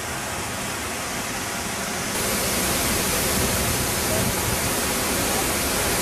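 Steady rush of a waterfall, which grows louder and brighter about two seconds in.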